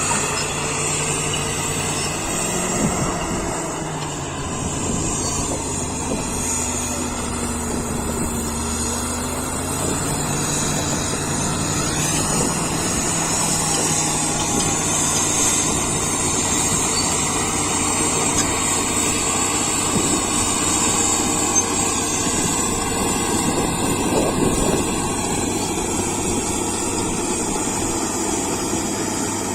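Caterpillar D7G bulldozer's six-cylinder diesel engine running steadily. Its pitch sags and recovers between about four and ten seconds in.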